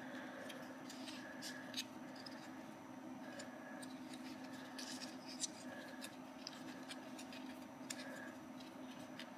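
Faint handling noise from a hand-held Arduino electronics stack in a 3D-printed plastic mount being turned over and around: scattered light clicks and short rubbing scrapes, over a steady faint hum.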